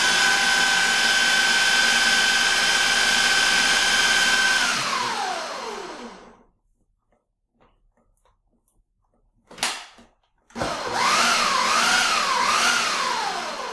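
Ninja blender motor running on a thick cheesecake batter, being re-blended to work out lumps: a steady whine for a few seconds that winds down, a pause with a single click, then a second run whose pitch dips and recovers three times under the load before winding down near the end.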